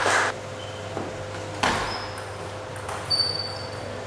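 Applause breaking off shortly after the start, then a few scattered sharp knocks of a table tennis ball in the hall. The knock near the end is followed by a brief high squeak.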